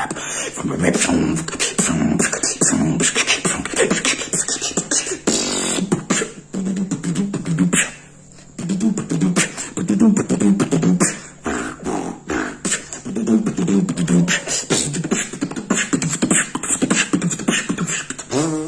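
Solo beatboxing: a fast, dense run of sharp percussive mouth clicks and snares mixed with bursts of low hummed, pitched tones. It breaks off briefly about eight seconds in, then picks up again.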